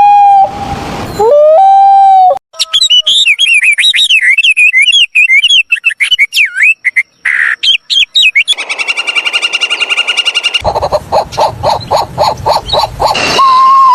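A run of different animal calls: two long held calls at the start, then a songbird's quick warbling chirps for several seconds, then a steady buzzing trill and a pulsed croaking, and near the end a long call that falls in pitch.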